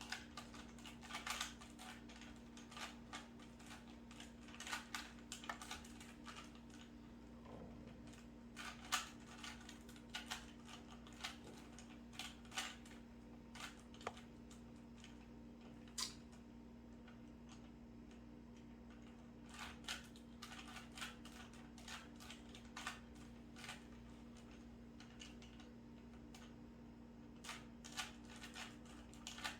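Plastic 3x3 Rubik's cube being turned by hand: quiet, irregular clicks and clacks of the layers snapping round, in quick clusters with short pauses, over a steady low hum.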